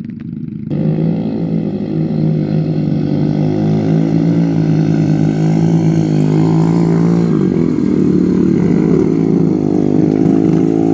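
Motorcycle engine running, starting suddenly and loudly about a second in and then holding a fairly steady pitch.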